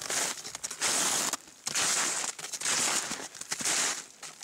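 Snowshoes crunching through crusty snow, one step after another at a walking pace.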